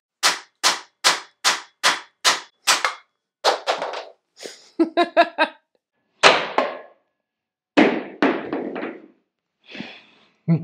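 3D-printed plastic ball-peen hammer striking a large nail into a pine board. Seven quick blows come at about two and a half a second, followed by slower, irregular strikes.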